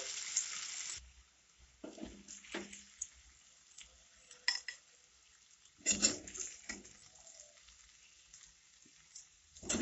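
Hot oil sizzling in a kadai, which fades out after about a second. Then a metal spatula scrapes and knocks against the pan in short, separate strokes as the spiced potatoes are scooped out.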